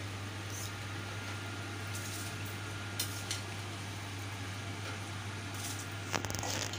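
Salted water with whole spices boiling in a steel pot on a gas burner, a steady hiss with a low hum under it. Near the end, washed rice is tipped into the boiling water with a cluster of clicks and splashes.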